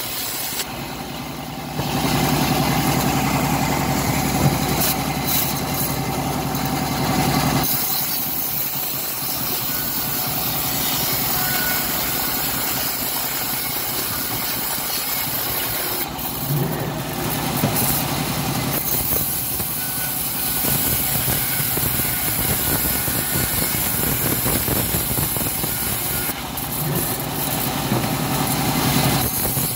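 Homemade bandsaw mill running steadily, its blade cutting lengthwise through a plank of old teak. The sound steps up in loudness about two seconds in and shifts a few more times as the wood is fed through.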